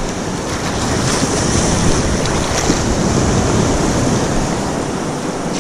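Small surf waves washing and sloshing around a wading angler, with wind buffeting the microphone.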